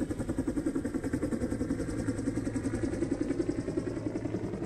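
A motor running with a fast, even throb of about seven beats a second over a low steady hum.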